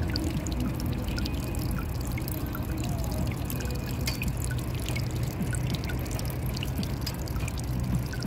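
Shallow water of a rooftop pool on a glass roof trickling and lapping at the pool's rim, with many small drips and plinks over it. A low steady rumble runs underneath.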